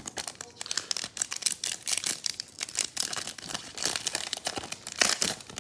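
Foil wrapper of a baseball card pack crinkling as it is torn open and pulled off the cards, a rapid dense crackle throughout.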